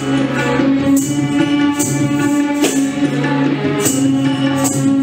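Devotional prayer song playing: a held melody over a steady drone, with a bright jingling percussion strike about once a second.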